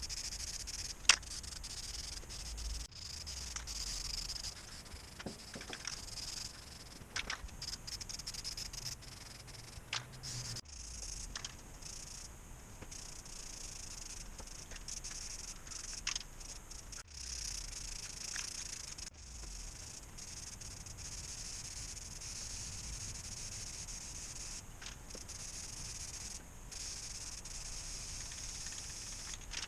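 Paint spraying onto the metal frame: a steady high hiss that breaks off briefly several times, with scattered clicks and knocks, one sharp knock about a second in.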